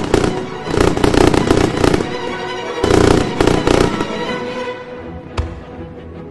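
Fireworks going off in dense crackling volleys, one through the first two seconds and another about three seconds in, then dying away, with music playing underneath.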